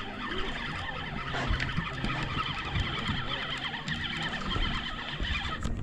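Boat engine running steadily, a low hum under general noise on the deck.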